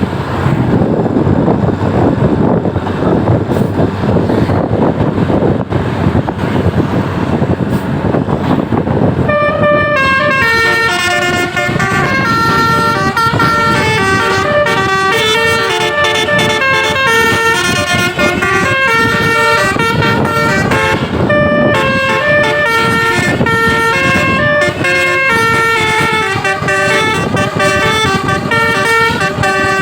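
Loud rushing noise for about the first nine seconds, then a bus's Basuri telolet multi-tone air horn plays a quick melody of stepped notes, with a short break about two-thirds of the way through.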